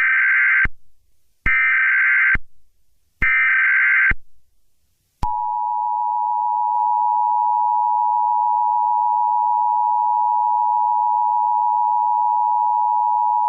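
Emergency Alert System tones: three short data bursts of the SAME header about a second apart, then the steady two-tone EAS attention signal sounding for about eight seconds.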